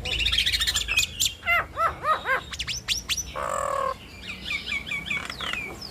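Nias hill mynas (jalak nias) calling in a duet: loud whistled notes that glide up and down, a harsh nasal squawk about halfway through, and a quick run of repeated chirps near the end.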